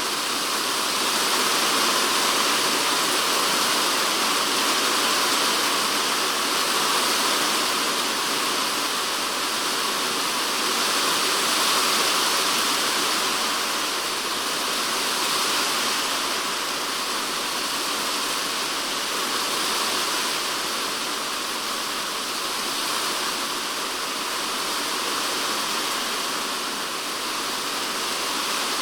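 Typhoon rain falling steadily and densely on a polycarbonate shed roof, heard from inside the shed, swelling and easing slightly every few seconds.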